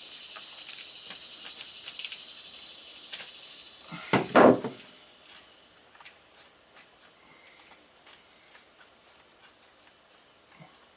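Light metallic clinks of hand tools over a steady high hiss while the engine oil is being drained from a Kawasaki KLR 650. One loud clunk comes about four seconds in, after which only faint small clicks remain.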